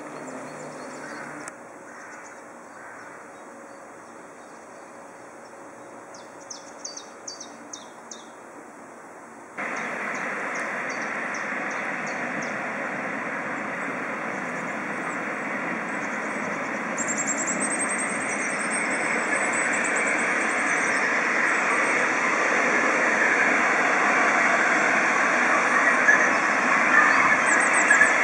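GWR heavy freight tank engine 4247 approaching under steam: a steady rushing noise that grows gradually louder over the last two-thirds.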